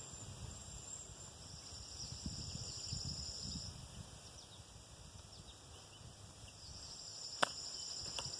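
Insects buzzing steadily in a high, fast-pulsing drone that swells and fades, over a low rumble. A single sharp click sounds near the end.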